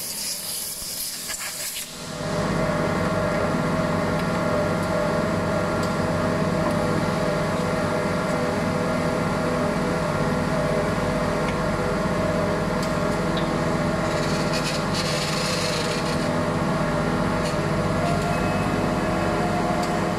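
Compressed air hissing from an air gun for about the first two seconds. Then a hydraulic curing press's power unit starts and runs with a steady hum as the press closes on the bladder mould, a higher tone joining near the end.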